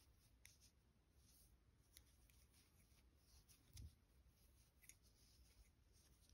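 Near silence, with a few faint scratches and ticks from a crochet hook working through medium-weight yarn.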